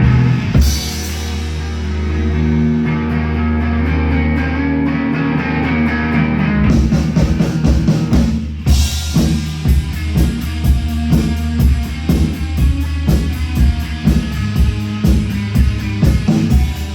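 Live rock band playing instrumental: electric guitar and bass hold a sustained chord, then the drum kit comes in with a steady beat about a third of the way through. After a brief break, the full band plays on.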